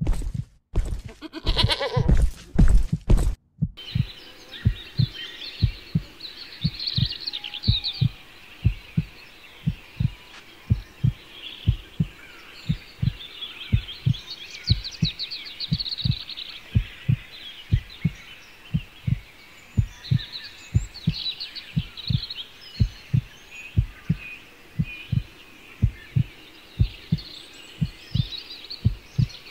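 Heartbeat sound effect: a steady train of low thumps, about two a second, over songbirds chirping. A louder stretch of sound fills the first three seconds and cuts off sharply.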